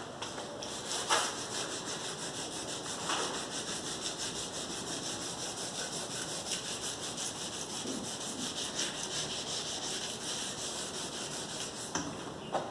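Hand sanding of a refrigerator's worn old paint, in quick, even back-and-forth strokes: surface prep before repainting.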